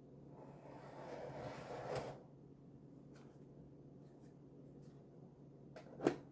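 Plastic model-kit parts being handled and set in place: a soft scraping rustle for about two seconds ending in a click, then a few faint clicks and one sharper click near the end.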